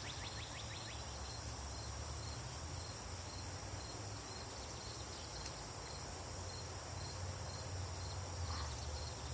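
Outdoor insect chorus: steady high-pitched chirping and buzzing, with a pulsing tone throughout and a quick rapid trill in the first second, over a low rumble of ambient noise.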